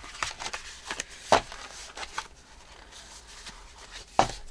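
Paper being handled on a craft table: light rustling with a few sharp taps and clicks, the loudest about a second and a half in and another near the end.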